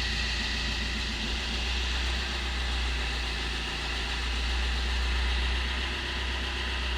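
Opel Corsa C 1.3 CDTI four-cylinder common-rail turbodiesel with 300,000 km on it, idling steadily just after a cold start.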